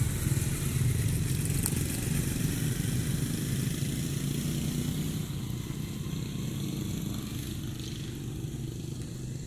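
A small engine running steadily, a low hum that slowly fades over the second half.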